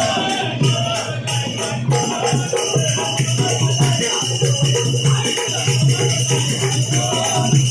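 Marathi devotional song music: a steady drum beat with jingling, shaker-like percussion and a wavering melody line.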